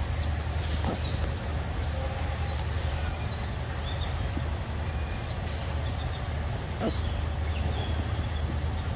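Forest insects droning steadily at a high pitch, breaking off now and then, with many short faint chirps and a steady low hum beneath.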